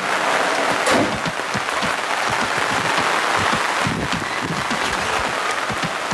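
Heavy rain falling on a pop-up canopy tent and wet pavement: a steady dense hiss made of many small, close-spaced drop taps.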